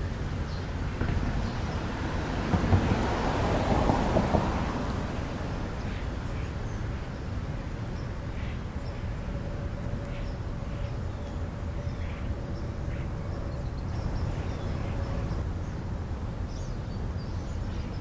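Outdoor background rumble of road traffic, swelling louder about three to four seconds in as a vehicle passes.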